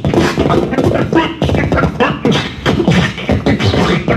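Live noise-music performance: the performer's amplified mouth and vocal sounds, loud and choppy, breaking up every fraction of a second.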